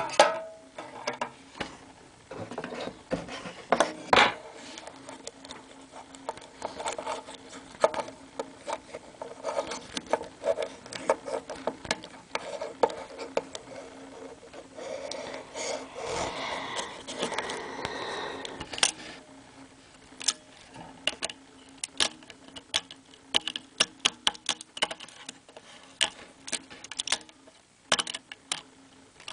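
Small plastic Bakugan ball toys handled close up: irregular clicks and taps of hard plastic pieces, with a denser stretch of rubbing and scraping a little past the middle.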